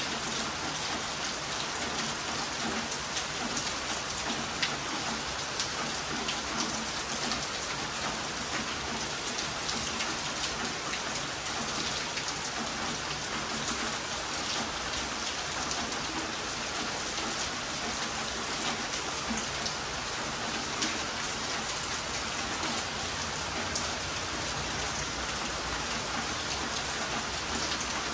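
Heavy rain falling: a steady hiss with many small drop impacts throughout.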